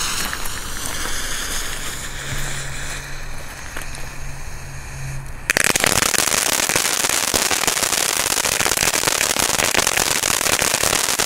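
Blue Star ground fountain, a youth (category F1) firework: its fuse hisses steadily for about five seconds, then the fountain ignites suddenly into a loud, dense crackling spray of sparks that keeps going.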